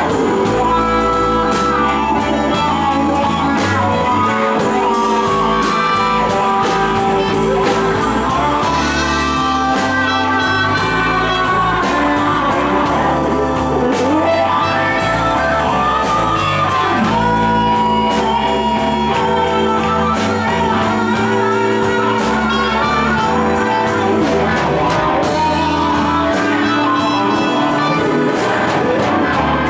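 Live blues band playing a slow blues: electric guitars, bass and keyboard, with a harmonica playing long held notes that bend in pitch over them.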